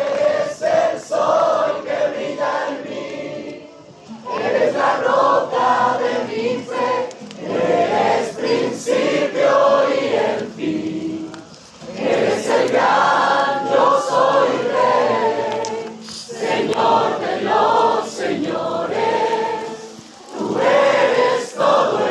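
A group of voices singing a worship song together, in sung phrases with short breaks between them.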